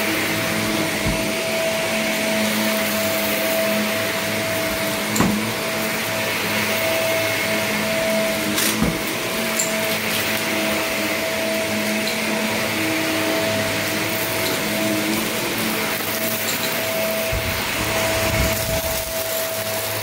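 Upright bagless vacuum cleaner running steadily on carpet, a constant whine over its rushing air, with a couple of brief clicks about five and nine seconds in.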